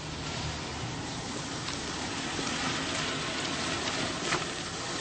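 Steady rushing, rain-like noise, with a short sharp click a little past four seconds in.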